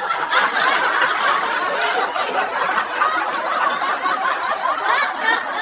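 A crowd laughing and chuckling together, many voices overlapping in a steady, continuous wash of laughter.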